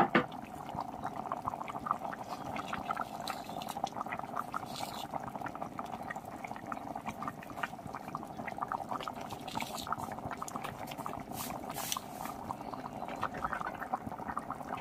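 Thick meat curry bubbling steadily in a pot on the stove, a dense run of small pops and blips from the simmering gravy.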